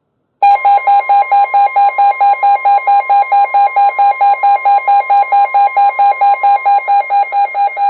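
NOAA Weather Radio 1050 Hz warning alarm tone, a steady tone that signals a severe weather warning, with several weather radios' alert alarms beeping rapidly over it, about four to five beeps a second.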